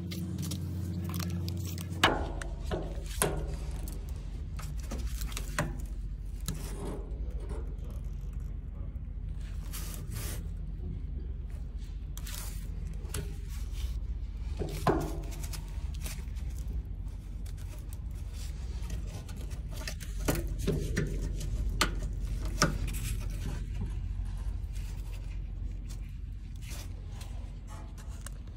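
Scattered scrapes and clicks of a gloved hand working around a truck's DEF line heater connector, with a steady low hum underneath that drops lower about two seconds in.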